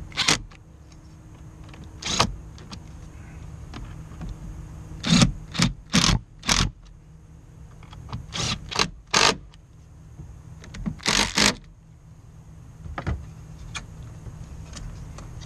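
Cordless electric screwdriver driving the screws of an air filter housing cover, in about a dozen short whirring bursts, some coming in quick runs of two or three.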